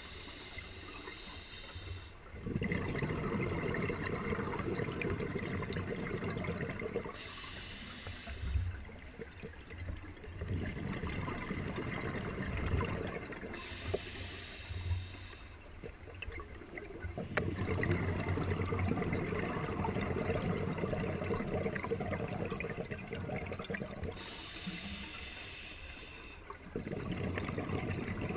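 Scuba diver breathing through a regulator underwater: a hissing inhale of a second or two alternates with a longer rush of bubbling exhaust, about four breaths in a steady rhythm.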